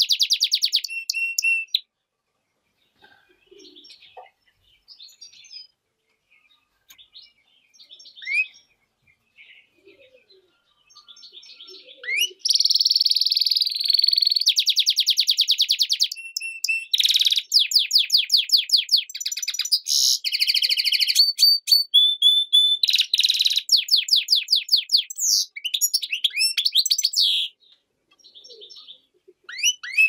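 Goldfinch × canary hybrid (mule) singing: a short burst of song, then a lull of faint scattered notes lasting about ten seconds, then a long run of song with fast trills and quick repeated notes. The song pauses briefly near the end and starts again.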